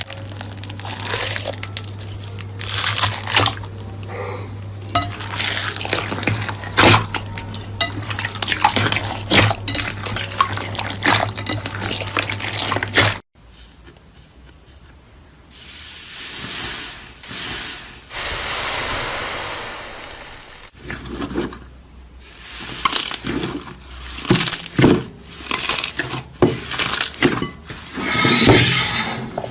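Slime being squeezed and poked by hand: a dense run of wet clicks, pops and squelches. A steady low hum runs under the first part. The sound changes abruptly about halfway through and again near 21 seconds, as one slime clip gives way to the next.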